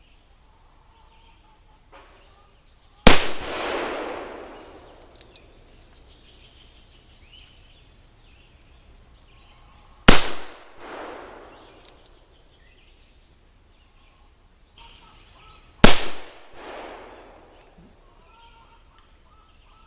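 Three black-powder shots from a .31 Remington Pocket cap-and-ball percussion revolver, spaced about seven and six seconds apart, each a sharp crack with an echo trailing off for about a second. A faint click comes shortly before the first and the third shots.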